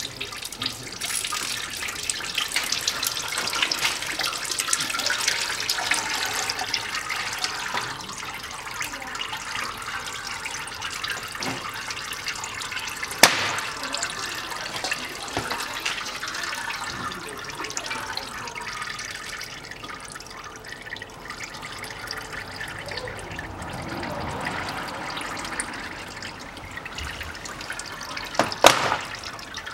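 Automatic transmission fluid running in thin streams out of a just-loosened transmission filter and splashing below, heaviest in the first several seconds and thinning later. Two sharp clicks stand out, about 13 seconds in and near the end.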